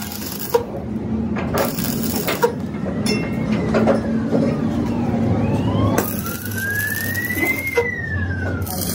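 A siren-like wailing tone that glides slowly down, then rises over a few seconds and starts falling again near the end. A steady low machine hum and a few sharp knocks lie beneath it.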